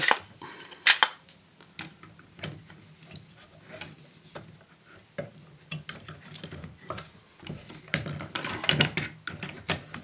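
Wooden spinning-wheel parts knocking and clicking as the bobbin and flyer of an Ashford Traditional wheel are handled and fitted between the maidens. Scattered light taps and clicks, the sharpest about a second in and a busier cluster near the end.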